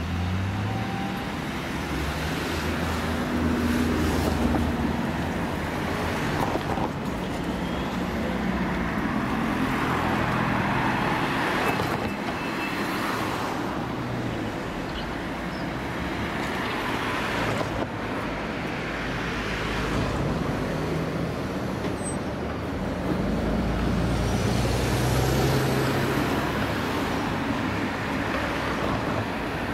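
Diesel engine of a tracked excavator working, its pitch rising and falling with the load, over a steady wash of mechanical noise.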